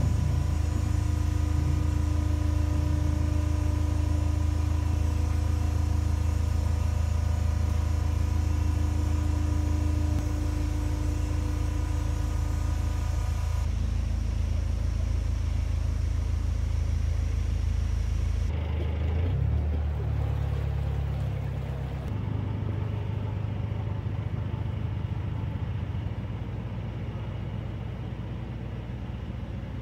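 Narrowboat diesel engine idling, a steady low hum; the sound shifts abruptly about halfway through and again a few seconds later, then carries a faint even beat.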